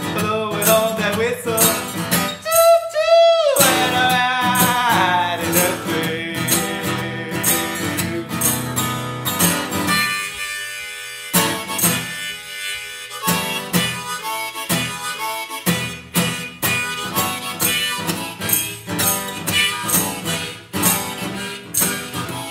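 Harmonica played over a steadily strummed acoustic guitar, an instrumental break with no singing. About three seconds in, the harmonica holds a high note that bends up and down.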